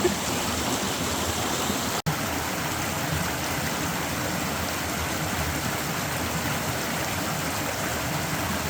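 Steady rushing of a stream or waterfall, an even wash of water noise that cuts out for an instant about two seconds in.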